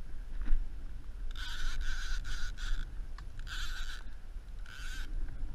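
Wind rumbling on the microphone over water moving around a kayak, broken by several short scratchy, scraping bursts in the middle and near the end.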